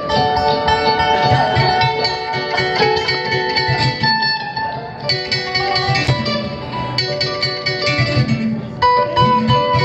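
Live instrumental music from plucked strings, guitar and kamale ngoni, playing quick runs of notes over a steady low pulse, in a blend of bluegrass and West African styles.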